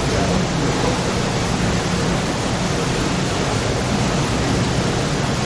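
Steady, even rushing noise that holds at one level, with no distinct knocks or calls.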